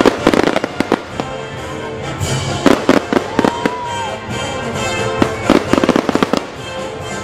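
Aerial fireworks going off in repeated bangs and crackles, in clusters at the start, near the middle and again near the end, over music playing.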